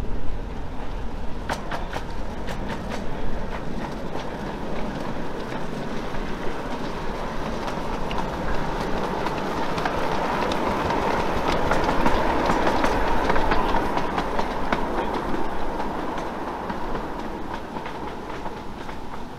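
Miniature Nickel Plate Road Berkshire steam locomotive running past, its wheels clicking over the rail joints. It grows louder as it approaches, is loudest about two-thirds of the way through as it passes, then fades as it moves away.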